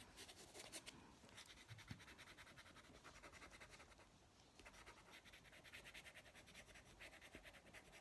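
Faint, quick scratching of a Prismacolor coloured pencil stroking back and forth on paper, with a brief pause about four seconds in.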